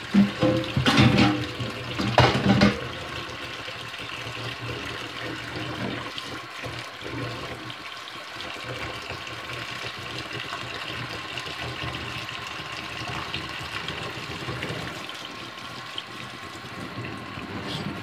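Kitchen faucet running steadily into a stainless-steel sink full of soapy dishwater while dishes are washed by hand. A few louder bursts of sound come in the first three seconds.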